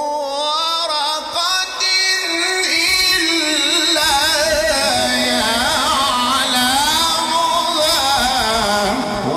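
A man's voice in Quran recitation, sung in the ornamented mujawwad style: one long melismatic phrase of held, wavering, bending notes, breaking off just before the end.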